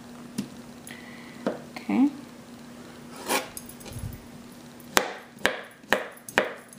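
Kitchen knife cutting soft, ripe papaya on a cutting board: a few scattered taps and scrapes, then in the last two seconds a run of sharp knocks, about two a second, as the blade chops through the fruit into the board.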